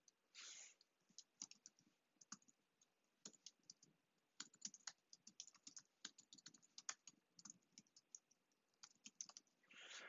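Faint, irregular clicking of computer keyboard keys as a name is typed into a form field. There is a brief soft hiss near the start and again near the end.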